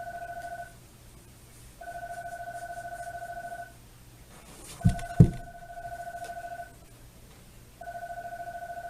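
Telephone ringing tone repeating: a warbling two-note tone sounds for about two seconds, pauses for a second, then sounds again, four times over. Two dull thumps come about five seconds in.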